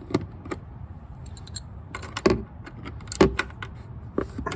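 Metal hand tool with a bit adapter loosening tight screws: scattered small metallic clicks, with two louder knocks a couple of seconds in and about a second later.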